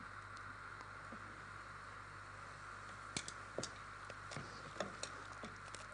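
Pot of water heating on a stove with a metal slotted spoon held in it: faint scattered ticks and small clicks, a handful in the second half, over a steady low hiss.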